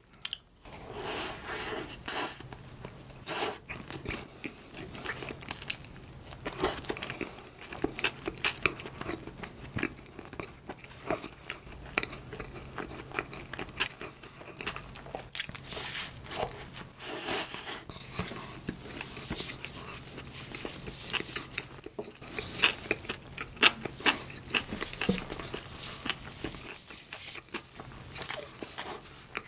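Close-miked chewing of soft bread, with bites and wet mouth clicks coming at an irregular pace.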